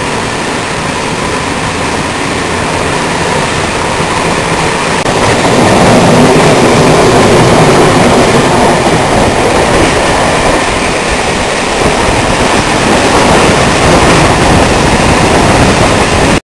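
Passenger train pulling out of a station and gathering speed, heard from the train itself: a continuous rumble and rush of wheels on rail that grows louder over the first several seconds, then holds steady and cuts off suddenly near the end.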